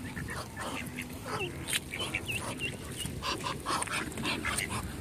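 A flock of ducks, mostly mallards, quacking and calling over one another in many short, overlapping calls while they crowd in for food; the noise is a lot, taken by those feeding them as the ducks being happy.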